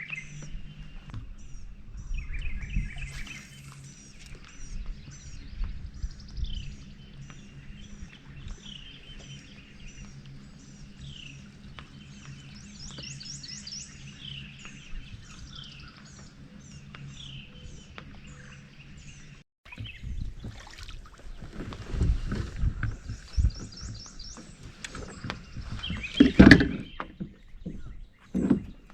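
Birds chirping and singing, one repeating a short call about twice a second, over a steady low hum. After a cut about two-thirds of the way through come irregular thumps and knocks, the loudest near the end.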